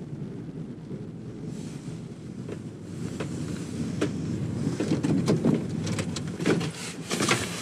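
Van cabin noise while driving: a steady low rumble of engine and road with some wind on the microphone. In the second half, irregular knocks and rattles come in.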